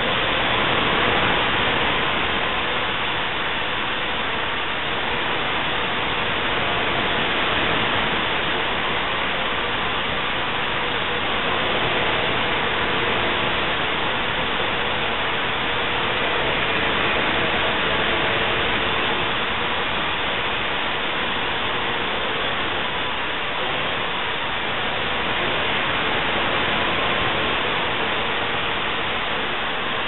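Parrot AR.Drone quadricopter's four motors and rotors running steadily in flight: a loud, even rushing hiss with a faint steady hum underneath.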